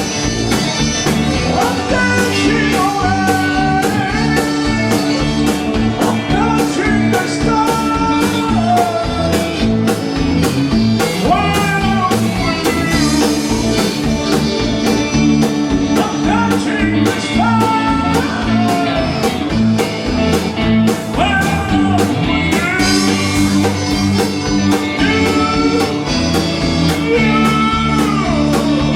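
Band music: a gliding melody line over sustained chords and a steady beat.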